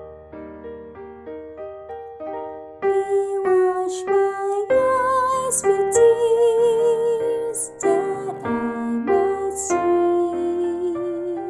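Piano accompaniment playing an introduction. About three seconds in, a woman's soprano voice comes in, singing the hymn melody with vibrato over the piano.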